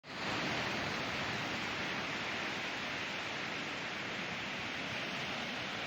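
Ocean surf washing onto a beach, a steady, even rush of breaking waves.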